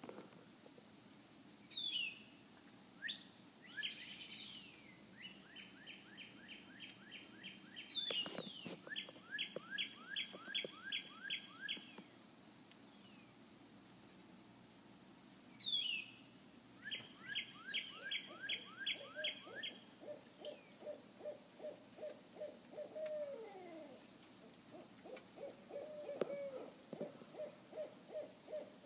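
A series of unidentified whoop-like calls: sharp whistles sliding down, runs of quickly repeated notes at about five a second, and a lower run of repeated whoops that ends in downward slurs.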